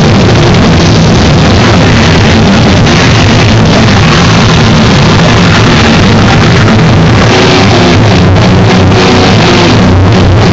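Rock band playing an instrumental stretch with electric guitar, bass guitar and drum kit together. It is recorded so loud that the sound is pinned at full level throughout.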